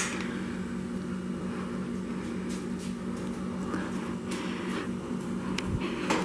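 Steady low machine hum with two constant tones, joined by a few faint short noises.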